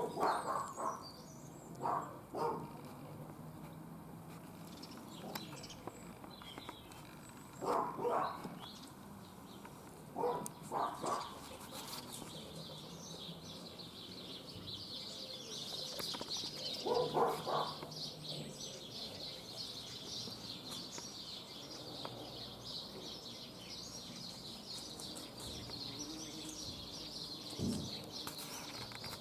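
Foxes giving a few short barks in clusters, while small birds chirp and twitter, the twittering becoming continuous about halfway through.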